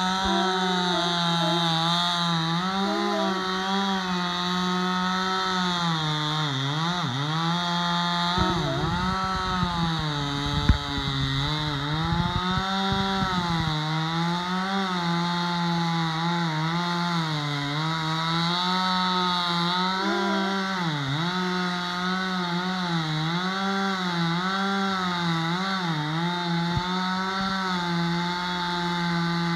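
Stihl MS 291 two-stroke chainsaw running at high revs while cutting into a pine trunk, its engine pitch dipping and recovering again and again as the chain loads up in the cut. A single sharp knock comes about eleven seconds in.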